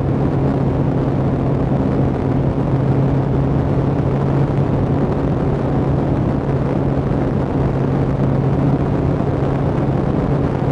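Suzuki GSX1300R Hayabusa's inline-four engine running at steady cruising revs under a heavy rush of wind noise. Its pitch steps up at the very start, then holds steady.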